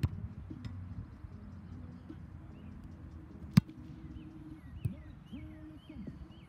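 A punter's foot striking an American football with one sharp thud about three and a half seconds in, the loudest sound; smaller knocks come at the very start and about a second after the kick. Birds chirp throughout.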